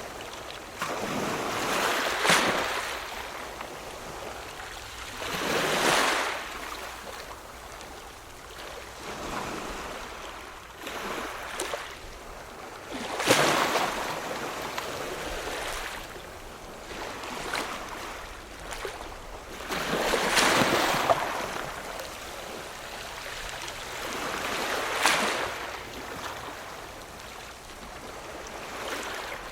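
Ocean waves breaking and washing in, each surge swelling and falling away every few seconds, with the loudest breaks about 13 and 20 seconds in.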